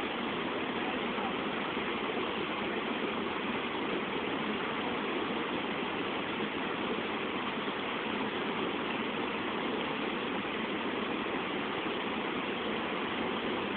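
Steady rushing of flowing water from a river pool or falls, an even unbroken noise that does not change.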